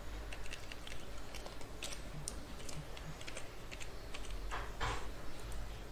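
Typing on a computer keyboard: a run of irregular key clicks as a short name is typed in, over a steady low hum.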